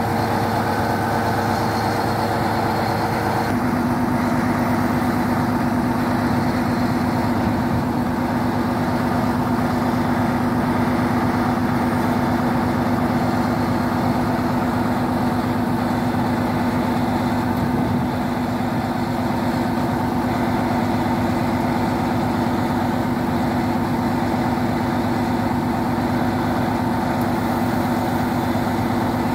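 Diesel train engine idling steadily at a standstill, ready to depart. A few seconds in, its note changes and a strong low steady hum comes in.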